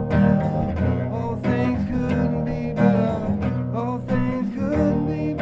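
Instrumental music: an Ibanez V70CE acoustic-electric guitar played through a Boss DD-3 delay pedal into guitar amps, picking notes with slides over held low notes.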